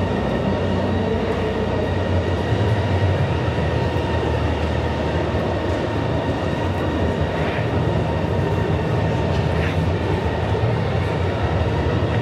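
Steady low rumble of a busy indoor exhibition hall, with a faint steady whine at several pitches.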